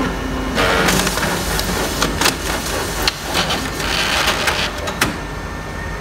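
Fuji Xerox DocuCentre VI C4471 colour copier running a print job with a grinding noise and several sharp clicks or knocks through its steady mechanical noise. The paper is jamming in the exit assembly (error 047-211).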